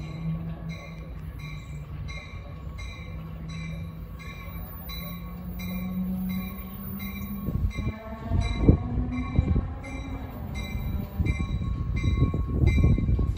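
Amtrak San Joaquin passenger train arriving at a station platform, led by its cab car: a warning bell rings about twice a second over a low steady hum, and the rumble of the wheels builds and grows louder over the last several seconds as the train draws alongside.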